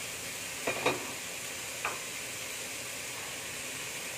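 Mung bean sprouts and vegetables sizzling in a wok, with a wooden spatula knocking against the pan a few times in the first two seconds, then a steady sizzle.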